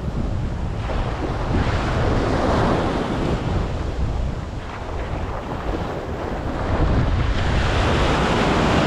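Wind buffeting the microphone over sea water washing against the boat, a steady rushing noise that swells and eases.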